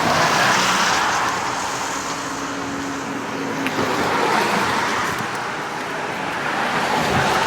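Road traffic: passing cars, the noise swelling and easing a few times with no single sharp event.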